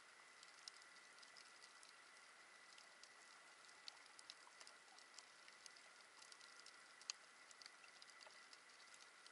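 Faint underwater reef crackle: irregular sharp clicks, several a second, over a low steady hiss, typical of snapping shrimp on a coral reef, with a thin steady high hum beneath.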